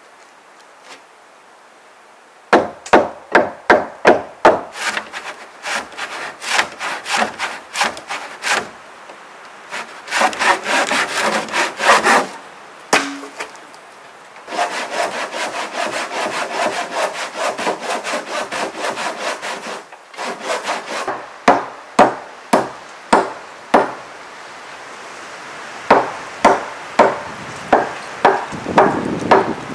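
Handsaw cutting through a thick fire-charred timber board: back-and-forth strokes beginning a couple of seconds in, coming in runs with a few short pauses, some strokes sharp and spaced, others quick and dense.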